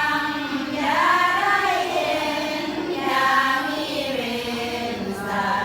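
A group of voices chanting together in long, sustained notes that slowly rise and fall in pitch.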